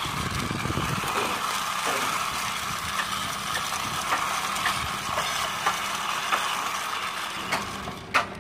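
Small plastic toy helicopter-car pushed back and forth by hand on a concrete ledge, its wheels and gearing whirring steadily, with a few sharp clicks near the end.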